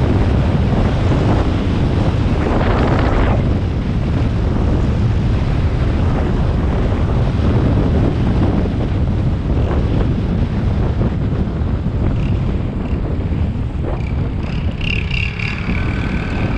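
Wind buffeting the microphone of a camera on a moving motorcycle, over the motorcycle's engine and road noise. A short high-pitched squeal comes near the end as the bike slows.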